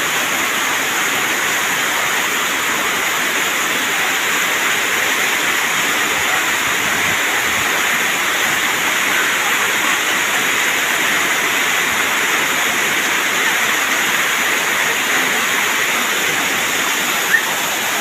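Waterfall pouring into a shallow pool: a steady, unbroken rush of falling water.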